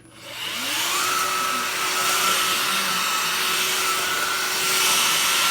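Hoover Impulse cordless stick vacuum switched on: its motor spins up with a rising whine over about the first second, then runs steadily with a high whine over rushing air.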